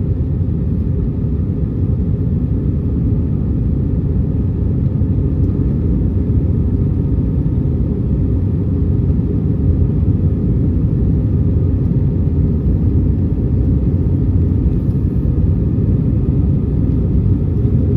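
Steady low rumble of an Airbus A320-200's engines and airflow, heard inside the passenger cabin; it grows a little louder about two seconds in.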